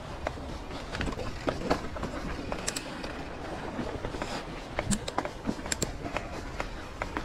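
Mountain bike rolling along a rough dirt trail: a steady rumble of tyres on dirt with irregular sharp clicks and knocks of the bike rattling over bumps.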